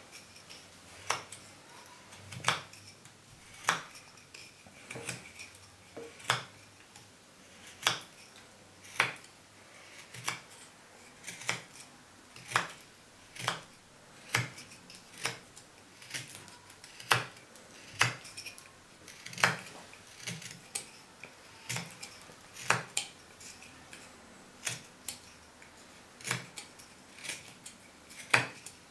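Carving knife whittling a wooden stick: a sharp click about once a second as each stroke slices a chip off, cutting down toward a saw cut that stops the blade.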